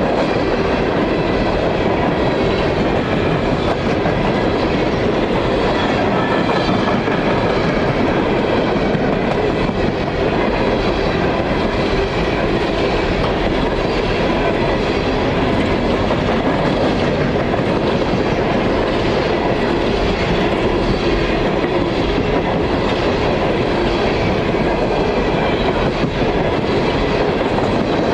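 Empty coal hopper cars of a long freight train rolling past steadily, wheels running over the rails.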